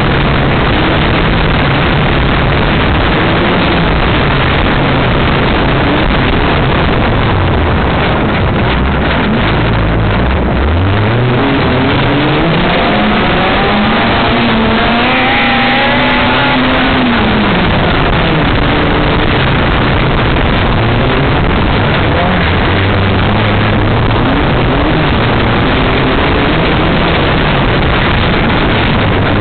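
Off-road race buggy's engine heard on board, loud and constant under dense wind noise on the microphone. About eleven seconds in, the revs climb sharply, hold high for a few seconds, then drop back.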